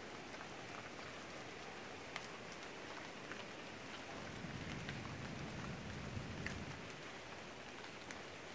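Faint, steady patter of light rain on foliage, with scattered single drops. A low rumble rises for a couple of seconds in the middle.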